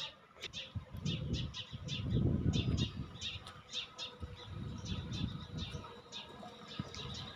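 Small birds chirping, several short chirps a second, over a low rumbling noise that swells twice and is loudest about two to three seconds in.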